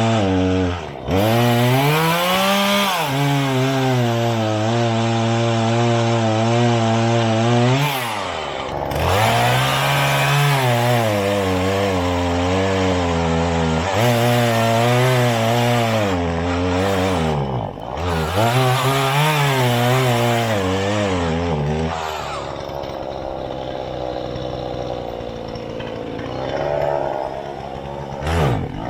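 Two-stroke chainsaw engine running at speed, its revs dropping sharply and picking back up several times, with a rougher, weaker stretch near the end before it revs up again.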